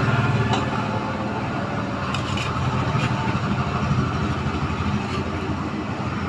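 Steady low motor hum or rumble in the background, with a few faint clicks and taps from boiled potatoes being peeled with a knife and dropped into a steel bowl of water.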